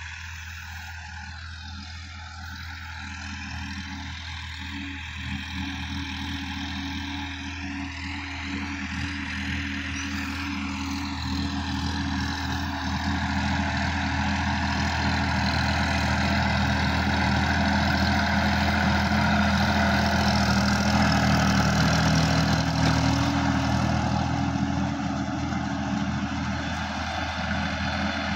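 Sonalika DI-50 RX tractor's diesel engine running steadily under load while pulling a rotary tiller through the soil. It grows louder as the tractor comes closer, loudest about three-quarters of the way through, then eases slightly.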